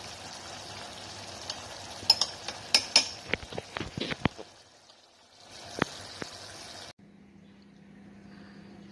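Metal spoon clinking and scraping against a nonstick saucepan of ground beef in ketchup sauce, over a steady sizzle from the pan. The clinks come in a quick cluster, then two more. About seven seconds in, the sound cuts to a quieter steady low hum.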